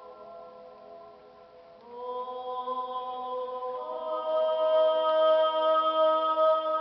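A voice sings long held notes in the Pisa Baptistry, whose long reverberation sustains each note so that they overlap into a chord. The earlier notes die away, a new note comes in just under two seconds in, and another about four seconds in, where the sound grows louder.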